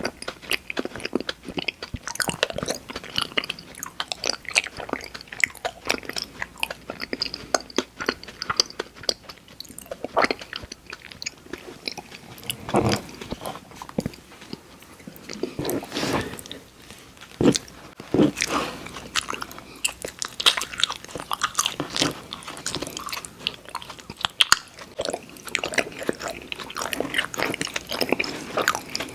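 Close-miked eating of candy sweets: continuous biting and chewing, full of small crackly clicks and crunches.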